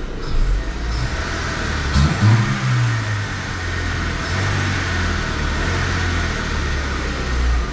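Honda Civic's D16 four-cylinder engine running, revved once about two seconds in and settling back to a steady idle. The owner suspects a rod knock in it.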